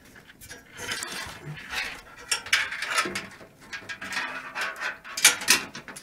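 Front-panel cables and their plastic connectors being handled and pulled about inside a metal PC case: irregular rustling, scraping and small clicks, loudest about five seconds in.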